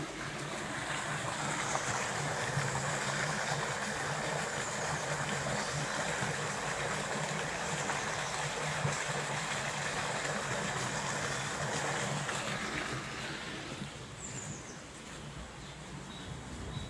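Water spilling through a narrow stone channel into a stream: a steady rushing splash that fades about thirteen seconds in.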